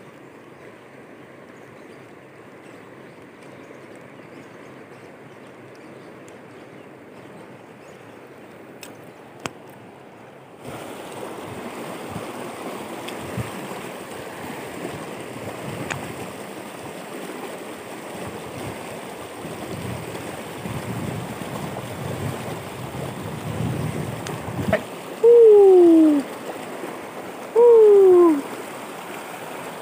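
Steady rush of shallow river rapids, louder after about ten seconds in, with a few faint clicks. Near the end come two loud falling hoot-like tones, each about a second long and two seconds apart.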